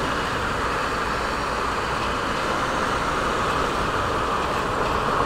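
Steady riding noise from a Honda CB Twister 250 single-cylinder motorcycle moving slowly through dense traffic, with the hum of surrounding cars.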